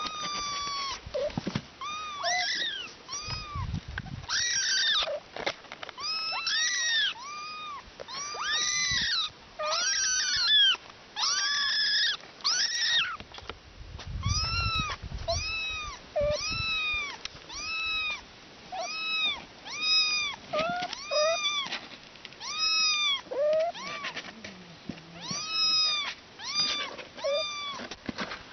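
A cat meowing over and over, high-pitched calls that rise and fall, about one a second, with a couple of low thuds among them.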